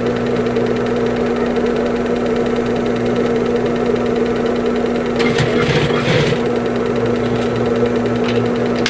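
Sewing machine running steadily with a constant motor hum, stitching a replacement main zipper onto a bag. A brief scratchy noise comes about five to six seconds in.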